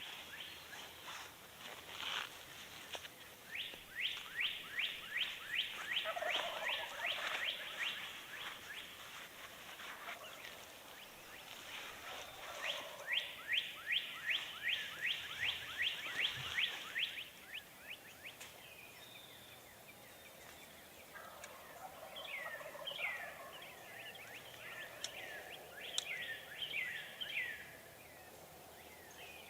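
Wild turkeys gobbling: two long bouts of quick rattling notes, a few seconds each, in the first half. In the last part, separate falling chirps of other birds take over.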